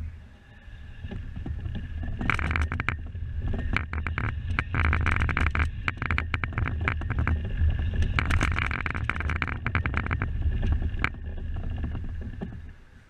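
A superkart being pushed by hand: its tyres rumble over the concrete and tarmac while the chassis and bodywork rattle and click, heard close up from a camera mounted on the kart. The rolling noise builds over the first couple of seconds and dies away near the end as the kart stops.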